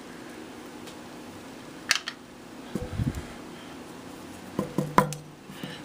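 A few small clicks and soft knocks as a key is pushed into a lock cylinder and turned slightly, over a steady fan-like hum.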